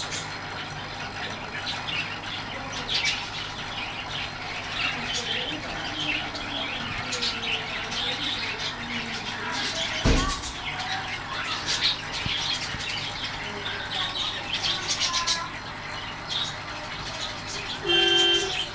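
Background ambience of small birds chirping and faint voices, with a single thump about ten seconds in and a short pitched tone near the end.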